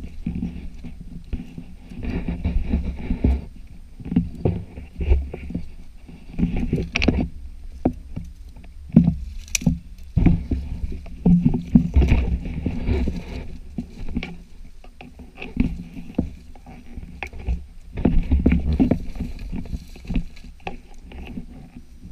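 Branches and scrub brushing and scraping against a body-worn camera and clothing while walking through dense heath, with scattered footsteps and sharp cracks of twigs.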